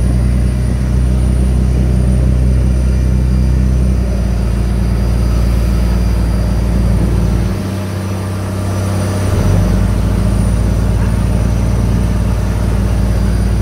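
Patrol boat's engines running hard at speed, a loud steady drone with rushing water around the hull. The engine note shifts and eases briefly about halfway through.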